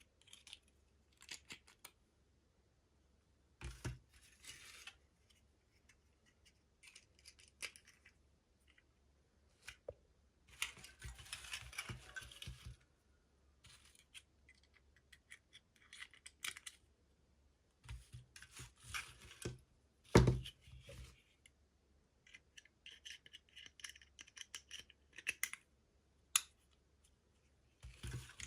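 Hands unboxing small plastic miniatures: packaging rustling and crinkling and small plastic pieces clicking, in scattered short bursts with quiet gaps. There is one sharper knock about twenty seconds in.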